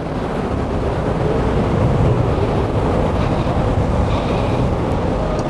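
Hurricane-force wind-tunnel airflow at about 88 mph blasting over the microphone: a loud, dense rush of wind noise that swells over the first couple of seconds, then holds steady.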